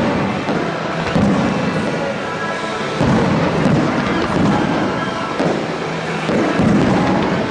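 Fireworks shells bursting with deep booms and rolling rumble, about five in a row one to two seconds apart, over music from the show's loudspeakers.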